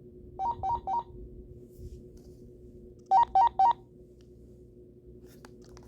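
AT&T CL82215 DECT 6.0 cordless handset sounding its find-handset paging tone: three quick beeps alternating between two pitches, then about two seconds later four louder ones.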